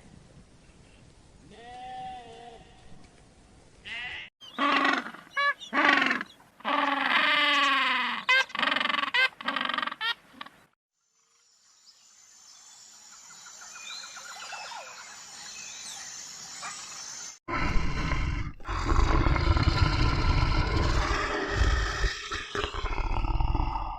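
Farm animals calling in a string of separate recordings: faint calls, then a run of loud bleating calls, a brief silence, and a loud, rough call over the last several seconds.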